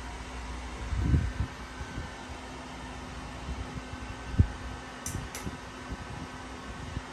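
Gemmy Airblown inflatable's built-in blower fan running steadily, keeping the figure inflated. A few short low thumps sound over it, one about a second in and the loudest a little past four seconds.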